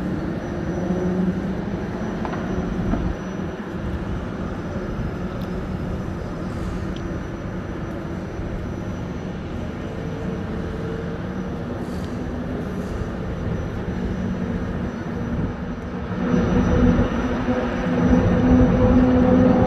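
Steady distant engine drone with a low rumble, growing louder over the last few seconds.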